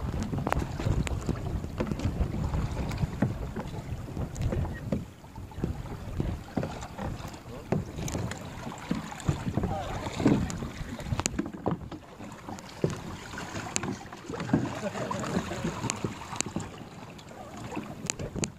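Choppy sea water lapping and splashing against plastic sit-on-top kayak hulls, with wind buffeting the microphone as a low rumble that eases after about five seconds. Scattered sharp taps and splashes run throughout.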